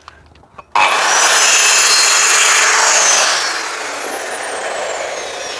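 Handheld electric circular saw starting up with a quick rising whine and cutting straight through a board along a gauge plate for about two and a half seconds. It is then released, and the blade winds down with a steadily falling whine.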